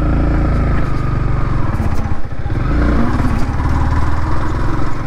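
Yamaha MT15's 155 cc single-cylinder engine running under way, its pitch rising and falling with the throttle. The level dips briefly a little over two seconds in, then picks up again.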